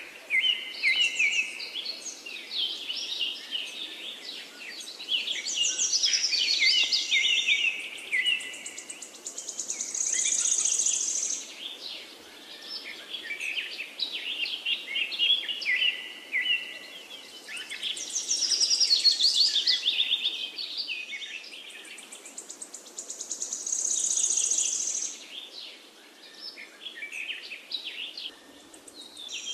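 Songbirds chirping and trilling in a busy chorus of quick high notes, in swells that recur about every 14 seconds like a looped birdsong background track.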